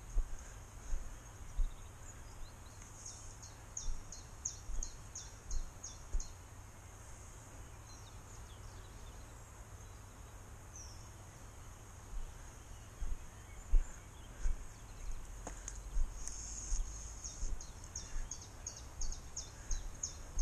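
A songbird singing a quick trill of about ten high, downward-sliding notes, twice, over a steady high hiss. Low thumps and knocks from the handler's walking, picked up by the body-worn camera, are the loudest sounds.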